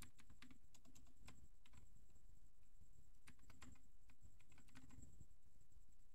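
Computer keyboard typing, faint, in three short flurries of keystrokes.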